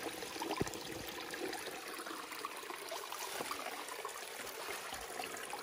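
Shallow forest stream trickling steadily, with a few light knocks about a second in.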